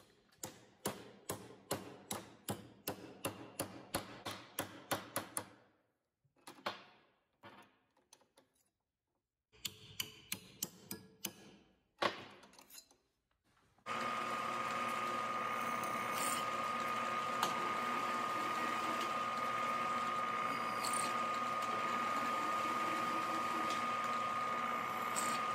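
A fast run of hammer blows on a metal strip clamped in a vise, then after a pause a few more. About halfway through, a milling machine starts running steadily with a high, even whine as its drill bit bores a hole in the strip.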